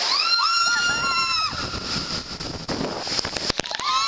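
A woman screaming on a water slide, over rushing, splashing water. One long high-pitched scream is held near the start, and another begins at the end. A few sharp clicks come about three seconds in.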